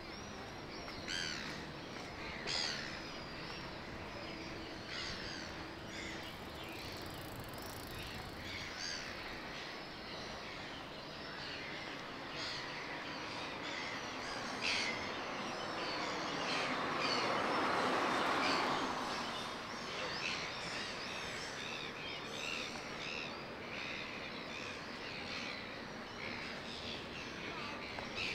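Outdoor city ambience full of small birds chirping repeatedly over a steady background hum. About halfway through, a broad rushing noise swells up, peaks and fades again within a few seconds.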